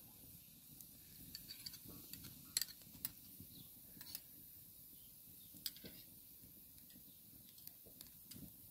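A few faint, scattered clinks of a metal spoon against a glass, the loudest a little over two and a half seconds in, over a low steady background noise.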